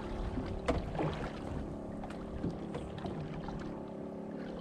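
Boat engine idling with a steady hum, with a few light knocks scattered through it.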